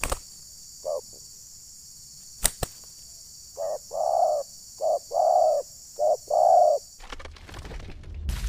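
Spotted dove cooing: a lone short note, then three phrases of a short note followed by a longer rolling coo. Two sharp clicks come between them, over a steady high hiss that stops near the end.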